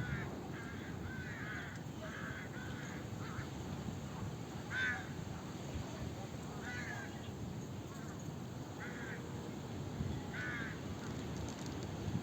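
A bird calling in short, repeated notes, several close together at first, then one every couple of seconds, the loudest about five seconds in, over a steady low background rumble.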